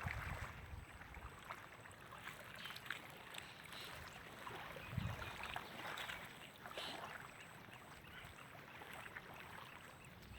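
Faint water noise at the water's edge, with a few soft clicks and knocks.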